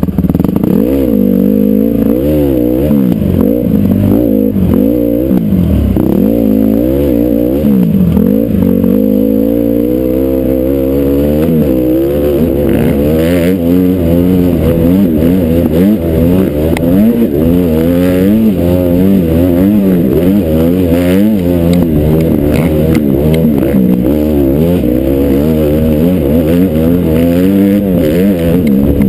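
Honda CRF450R dirt bike's single-cylinder four-stroke engine under a rider's throttle, heard close from the bike: revs swing up and down again and again for the first ten seconds or so, then hold steadier and higher with slower climbs.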